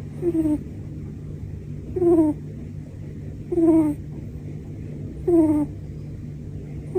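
A sleeping cat snoring, each breath giving a short squeaky note that falls slightly in pitch, four times at an even pace of about one every second and a half.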